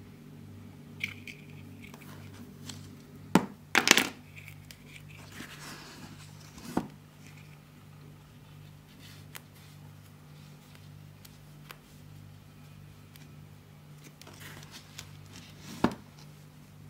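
Pink kinetic sand scooped with a plastic spatula and pressed into a plastic castle mould: soft crumbling and scraping, broken by a few sharp knocks, the loudest cluster about four seconds in and another just before the end. A steady low hum runs underneath.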